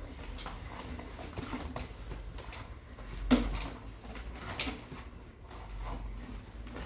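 Sewer inspection camera's push cable being pulled back by hand: scattered clicks and knocks of the cable and reel, with one sharp knock a little past halfway, over a steady low hum.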